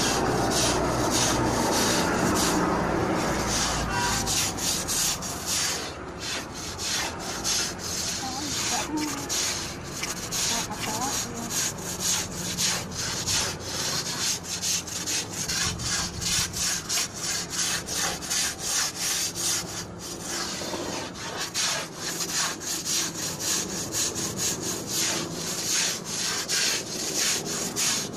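Long-handled scrubber scraping back and forth over a wet concrete rooftop in steady strokes, about two a second. A louder rushing noise fills the first few seconds.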